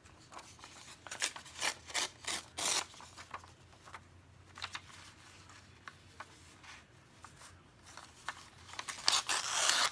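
Book-page paper rustling and crinkling as it is handled and smoothed: a run of short crinkles in the first three seconds, a few more about five seconds in, and a longer rustle near the end.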